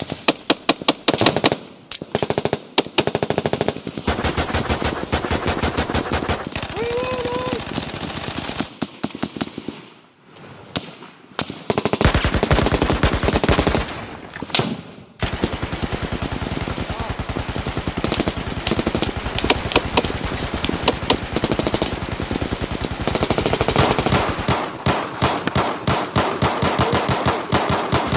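Automatic gunfire: several weapons firing rapid bursts that overlap. There is a short lull about ten seconds in, then an unbroken stretch of fire a couple of seconds later.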